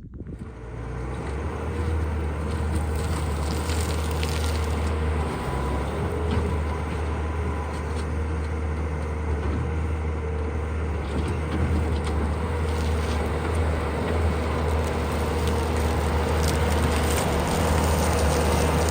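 Bobcat skid steer's engine running steadily under load, a constant low-pitched drone with scattered clicks and crackles.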